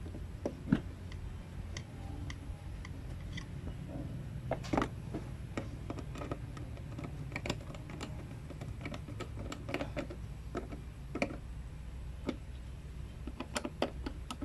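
Irregular small clicks and taps of a hand screwdriver and screw against the plastic fog light mounting as the screw is started and turned in by hand, over a steady low background rumble.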